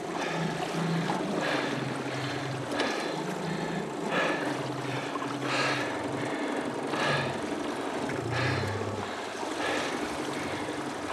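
Small outboard motor running steadily at low speed, its pitch wavering a little, with a K-1 sprint kayak paddle's blade splashing into the water about every second and a half.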